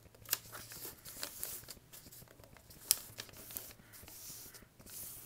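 A sheet of paper being folded and creased by hand: rustling and crinkling, with a sharp crackle just after the start and a louder one about three seconds in.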